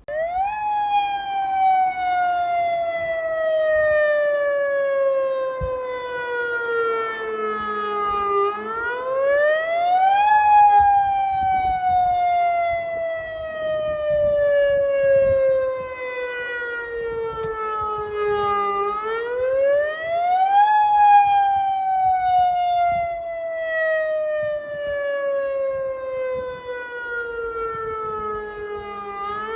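Federal Signal Modulator electronic outdoor warning siren sounding a wail, starting abruptly: the pitch sweeps up quickly, then slides slowly down, repeating about every ten seconds. A rising-and-falling wail like this is the attack signal, not the steady alert tone.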